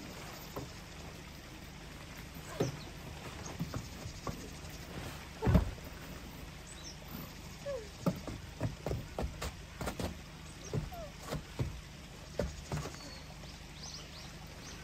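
Tent fabric rustling and frame poles knocking as a Polaris Aries Alpha living-shell tent's skin is pulled over its poles. There is one loud thump about five and a half seconds in and a quick run of short knocks and rustles in the second half.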